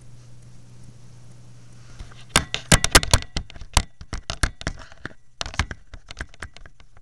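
A rapid, irregular run of sharp clicks and knocks beginning about two seconds in and lasting several seconds: handling noise as the camera is jostled.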